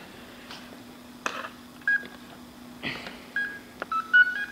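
Short electronic beeps at a few different pitches, one about two seconds in and a quick run of them near the end: an Exceed brushed ESC playing its power-up tones through the 15-turn 540 brushed motor. Two brief rustles come in between.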